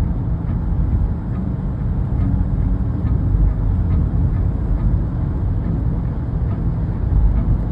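Loud, steady low rumble of a running machine, with faint ticks recurring about twice a second.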